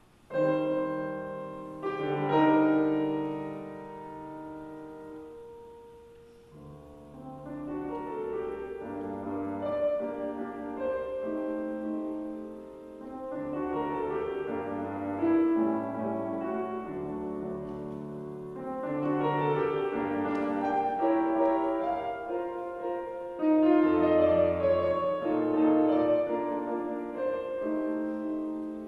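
Grand piano played solo. After near silence, a loud chord comes in about half a second in, followed by phrases of sustained notes that swell and fade.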